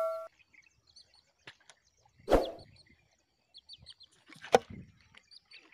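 A metallic ring fades out at the start. Then there are faint scattered bird chirps, broken by a soft thud about two seconds in and a sharp knock about four and a half seconds in.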